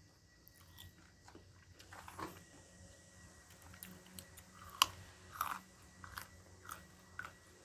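A person chewing food close to the microphone: irregular crunchy bites and mouth sounds, with one sharp click just under five seconds in.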